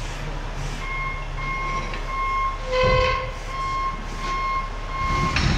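A vehicle's reversing alarm beeping at an even pace, a little under two beeps a second, starting about a second in, over a steady low hum. Two short, louder noisy bursts cut in near the middle and near the end.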